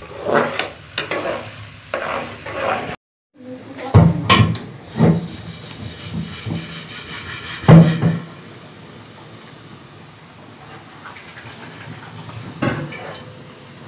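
Ground garlic and ginger frying in oil in a metal pan for a tarka, a spatula scraping and tapping the pan over a sizzle. After a brief cut about three seconds in come several louder knocks of the spatula against the pan, then a steady soft sizzle.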